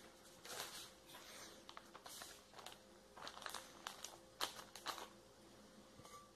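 Thin plastic film crinkling as it is laid over a round cake pan and smoothed down by hand: a series of faint, short crackles.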